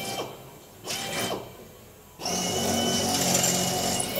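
Pneumatic rivet gun hammering rivets into the aluminium structure of a Lancaster's rear wheel oleo support box, in bursts: a short one at the start, another about a second in, then a longer run of about two seconds.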